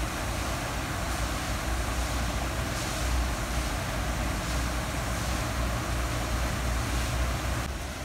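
Small rocky cascade waterfall splashing into a pond: a steady rushing of falling water over a low rumble. Near the end it turns quieter and duller.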